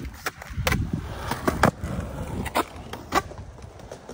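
Skateboard wheels rolling on concrete with a steady rumble, broken by about half a dozen sharp clacks of the board and wheels hitting the ground.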